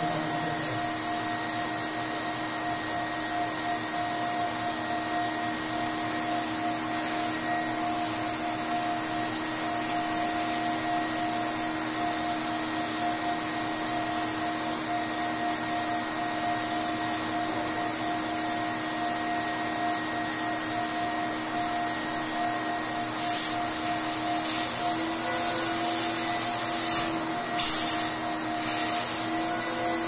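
Pressure washer running steadily with a hum, its water jet hissing as it sprays the air conditioner's coil fins. A few short, louder spurts of spray come near the end.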